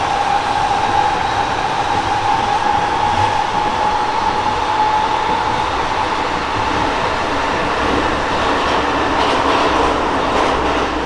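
Tokyo Metro 16000-series subway car running at speed, heard from inside the car: a steady whine from its Toshiba IGBT inverter and permanent-magnet synchronous motors, rising slightly as the train accelerates through about 70 km/h, then fading away a little past halfway, over continuous wheel-on-rail rolling noise.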